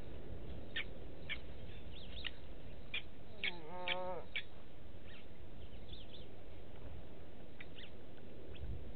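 Blacksmith lapwings calling with short, sharp, metallic 'tink' notes, scattered and repeated, busiest in the first half. About four seconds in comes one longer, lower call that dips in pitch and then holds.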